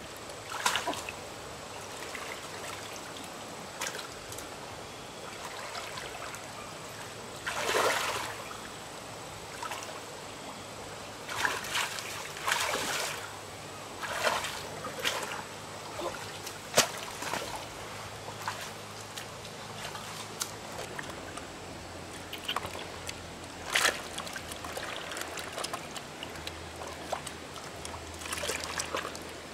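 Water splashing and sloshing in short bursts as live fish thrash in a bucket of water and are handled in shallow muddy water, with a trickling background.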